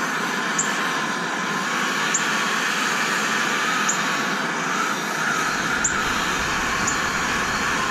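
Handheld gas torch burning with a steady hiss as it heats a corroded, seized bolt joint on a train-horn chamber, with a few faint high ticks.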